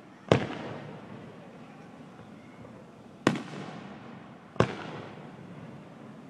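Aerial firework shells bursting: three sharp bangs, the first just after the start, then two more about three and four and a half seconds in, each trailing off in a fading rumble.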